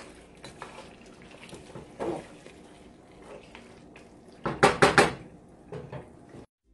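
Wooden spatula stirring a thick beef stew in a nonstick pot with soft scraping, then three or four sharp knocks of the spatula against the pot about four and a half seconds in.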